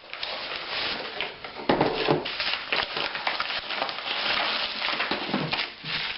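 Packaging of a replacement laptop screen being opened and handled: continuous crackling, rustling and scraping of foam wrap and cardboard, with scattered short clicks.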